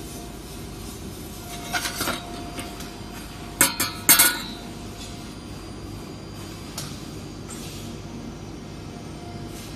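Sharp metal-on-metal clinks from the welded steel threaded studs being struck or knocked: a few about two seconds in, then a louder cluster of three or four around four seconds, each with a short ring. A steady background hum runs underneath.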